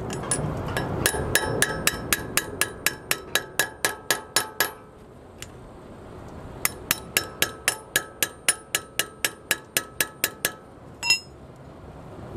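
Hammer blows on a screwdriver used as a drift to knock a bushing out of a SAF trailer axle's brake bracket: two runs of quick, ringing metal-on-metal strikes, about five a second, with a short pause between them, and a single clink near the end.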